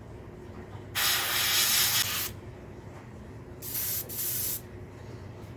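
Airbrush spraying paint in three bursts of hissing air: one lasting just over a second, about a second in, then two short ones in quick succession a little past the middle.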